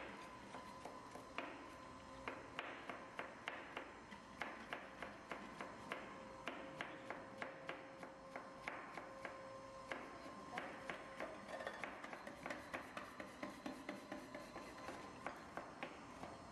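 Kitchen knife chopping carrots on a plastic cutting board: quick, uneven knocks, about two to three a second, over a faint steady tone.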